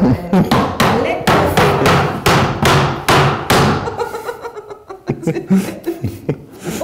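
Hammer blows on wooden floorboards, about two or three a second, thinning to a few scattered strikes in the second half.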